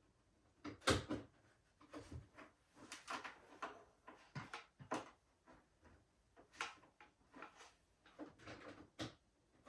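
Irregular knocks, clicks and rustles of objects being handled by hand, the loudest knock about a second in.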